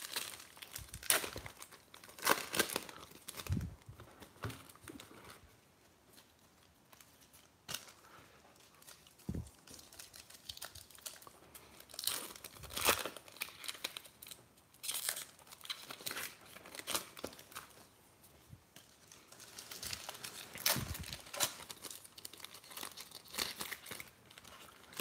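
Baseball trading-card pack wrapper crinkling and tearing as it is opened by hand, in scattered short bursts with quieter pauses between.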